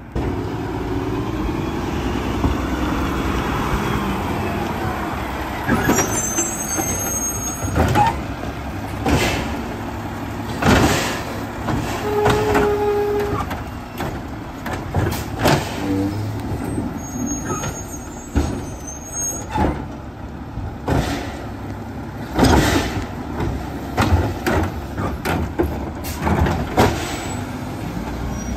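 Split-body automated side-loader garbage truck working at the curb: its diesel engine runs steadily while the hydraulic arm lifts and empties a trash cart, with a run of clunks and bangs from about eight seconds in and a couple of brief high squeals.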